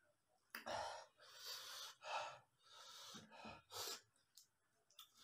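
A man's sharp, hissing breaths through the mouth, about five in four seconds: sucking in air against the burn of very spicy fire noodles.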